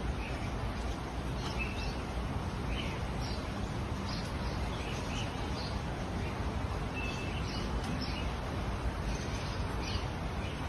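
Steady background noise, strongest in the low end, with faint short bird chirps scattered through it every second or so.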